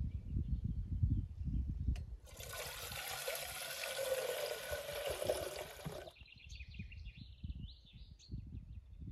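A rush of running water lasting about four seconds, starting and stopping abruptly, after a low rumble in the first two seconds. Birds chirp afterwards.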